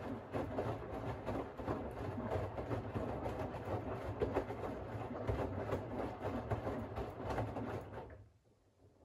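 Siemens iQ700 WG56B2090 washing machine turning its drum in the wash phase: laundry and water churning over a steady low motor hum. It stops suddenly about eight seconds in, as the drum comes to rest between turns of the wash rhythm.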